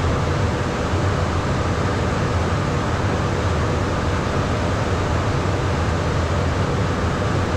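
Steady cockpit noise of a Beechcraft Premier 1A business jet in flight: an even rush of airflow and engine noise with a low hum underneath.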